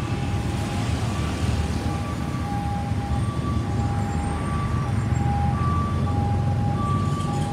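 Emergency vehicle's two-tone hi-lo siren, alternating steadily between a lower and a higher note about once a second each cycle, over the steady rumble of slow city traffic.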